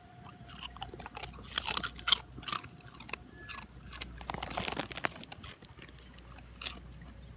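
A dog crunching and chewing a piece of crispy pork crackling, in irregular crunches.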